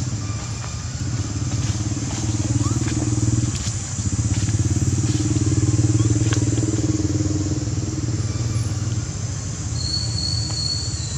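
A motor vehicle engine, most like a motorcycle, running steadily. It dips briefly about three and a half seconds in and is loudest around the middle. Near the end a short, steady high-pitched whistle-like tone sounds for about a second.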